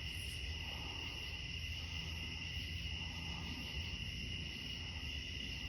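Crickets trilling steadily over a low, constant rumble of night-time outdoor ambience.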